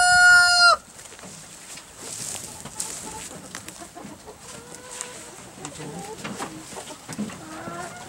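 A rooster crowing, its long held final note ending about three-quarters of a second in. Then quieter knocks and rustling.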